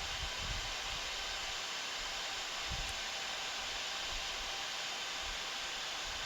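Steady cockpit background hiss of an Embraer 175 airliner on final approach with gear down and landing flaps set, with faint low rumbles underneath.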